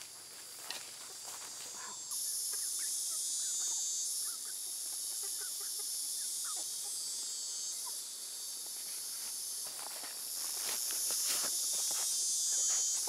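A steady high-pitched chorus of insects, which comes in louder about two seconds in. Under it are soft crunches and scrapes of dry soil as a yam bean root is pulled out by hand, and a few sharper scrapes of a hoe digging into the earth near the end.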